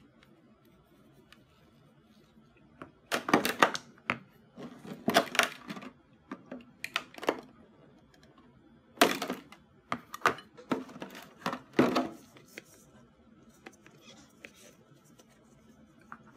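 Unboxing handling of a plastic transforming toy and its packaging: several short clusters of clicks, knocks and rattles, with quiet between them.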